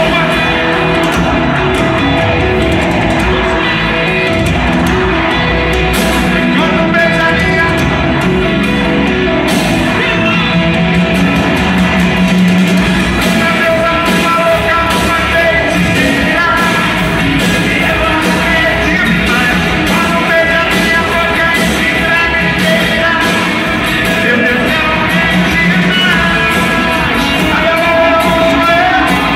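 Sertanejo duo singing live with a band over a PA, heard from among the audience: vocals over electric and acoustic guitars and drums.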